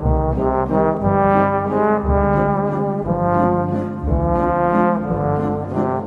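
Instrumental music for a children's dance: a melody of held notes that change about once a second over a low beat.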